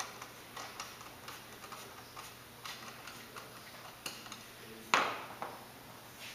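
Light, irregular ticking of a self-tapping screw being driven by hand through a connector into aluminium tubing, with one sharp knock about five seconds in.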